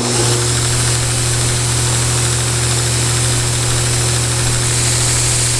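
Grizzly knife buffer/grinder's electric motor running a worn 220-grit sanding belt at speed: a steady hum with the hiss of the moving belt. Toward the end, a steel single-bevel broadhead is pressed against the belt and ground for sharpening, and the high hiss brightens.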